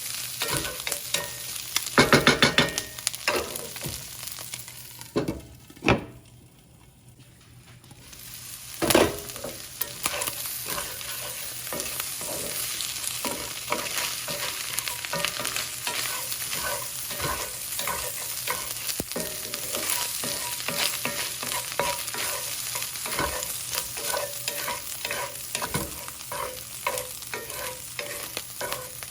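Food sizzling in a frying pan while a utensil stirs and scrapes it, with a steady stream of scraping and clicking strokes. Louder clatters come about two and nine seconds in, and the sizzle drops away briefly about six seconds in before picking up again.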